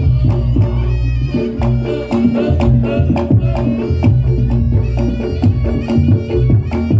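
Reog Ponorogo gamelan music: drums pounding a fast, steady beat under gong-chime notes, with a reedy slompret carrying the melody and frequent sharp clicks cutting through.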